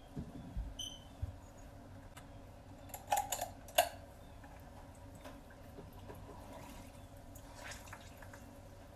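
Light kitchen handling sounds: a few soft thumps, a brief squeak, then a cluster of sharp clicks and taps about three to four seconds in, with fainter taps after.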